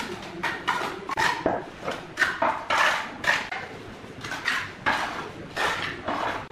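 Steel trowel scraping and spreading wet mortar over a brick step, in short repeated strokes about two a second.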